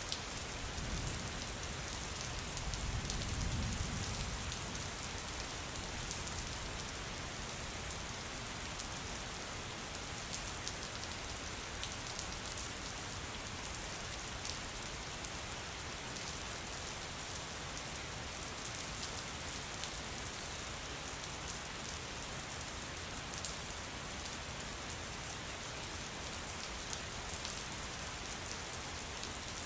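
Steady rain falling, with many individual drops ticking. A low rumble swells and fades between about one and four seconds in.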